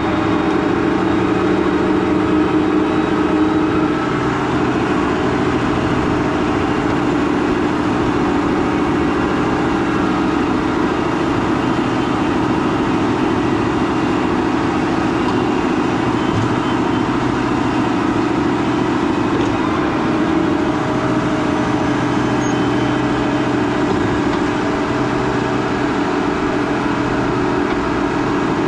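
Large farm tractor's diesel engine running steadily under load, with a constant hum and even loudness throughout.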